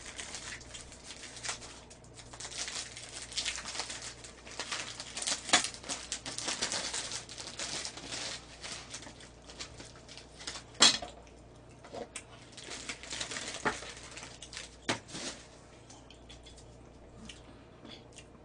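Paper and plastic packaging rustling and tearing as it is opened and a pair of stockings pulled out, with a few sharp snaps, the loudest a little past the middle. The handling quietens toward the end.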